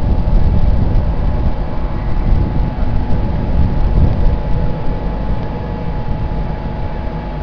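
InterCity 225 express (Class 91 electric locomotive with Mark 4 coaches) pulling out and rolling past close by: a steady heavy rumble of wheels on rail with a thin steady hum above it, easing slightly near the end.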